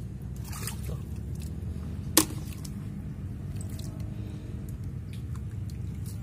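Hands squelching and splashing in shallow mud and water while groping for mangrove clams, with scattered small clicks and one sharp click about two seconds in, the loudest sound.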